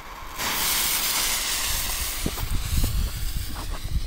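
Silver Spider fountain firework catching about half a second in and spraying sparks with a loud, steady hiss, with a few low pops beneath it in the second half.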